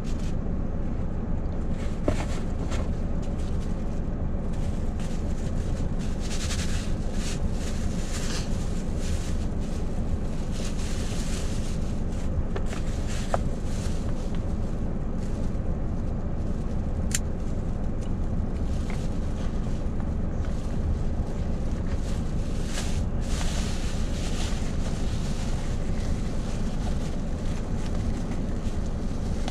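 Steady low rumble of an idling truck engine heard from inside the cab, with a few brief rustles and small clicks over it.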